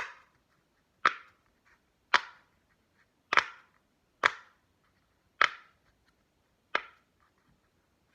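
Silicone Pop-It fidget toy being popped from its good side: seven crisp single pops, about one a second.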